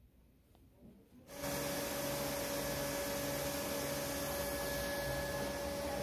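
Neato D7 robot vacuum's suction fan and brush starting up about a second in, then running steadily at its highest power setting. It makes an even whooshing with a constant whine and a low, pulsing hum.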